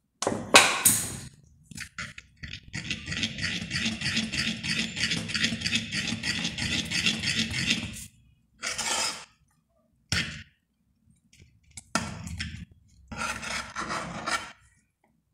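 A metal utensil stirring and scraping a thick soap mixture around a metal pan: a few sharp scrapes, then a fast, even run of stirring strokes for about five seconds, then several shorter scrapes.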